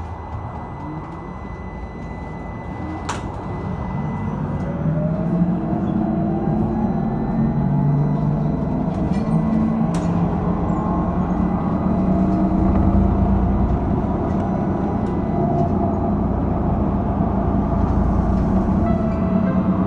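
LAZ-E301 trolleybus pulling away and accelerating, heard from inside the cabin: the electric traction drive's whine rises in pitch over several seconds, then holds, over a rumble of running gear and road that grows louder. A few single clicks from the body.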